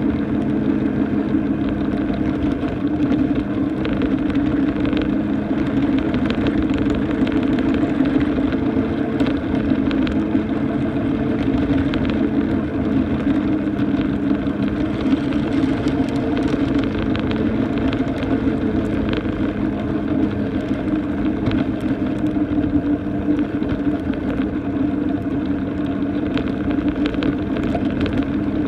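Ride-on miniature railway train running along its track: a steady drone from the locomotive's motor, with scattered sharp clicks from the wheels on the rails.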